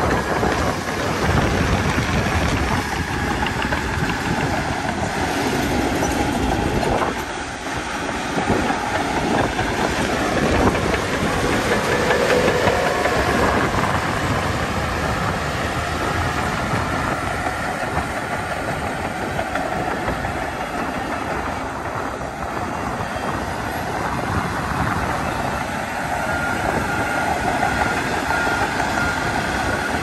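Heavy diesel machinery working: a crawler bulldozer's engine running steadily under load, with the clatter of its steel tracks.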